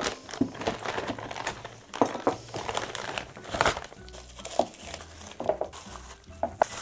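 Clear plastic zip-lock bag crinkling and rustling in irregular bursts as it is opened and the sofa-bed feet are pulled out of it.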